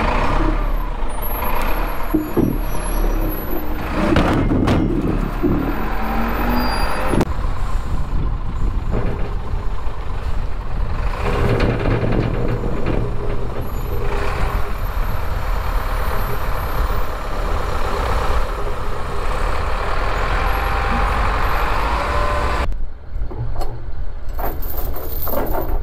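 A heavy-equipment engine running steadily, with a couple of brief rising whines and a few knocks and clanks as gear is moved about.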